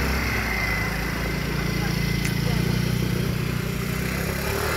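A small motor running steadily, a low even hum that starts at once and stops just before the end.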